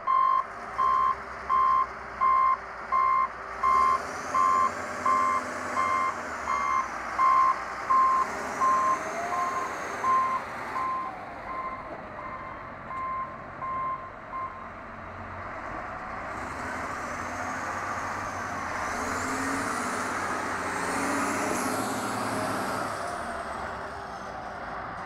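Caterpillar 966F wheel loader with its backup alarm beeping about one and a half times a second, fading and stopping a little over halfway through. Its diesel engine runs underneath and then grows louder, with a high whine that rises and falls.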